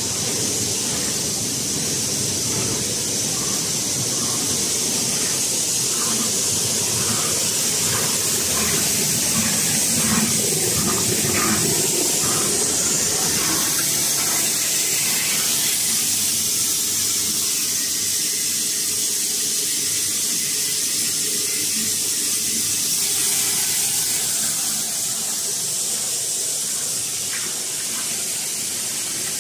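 PE flake pelletizing and extrusion line running: a steady hiss of machinery with a low rumble underneath, and a few faint short high tones in the middle.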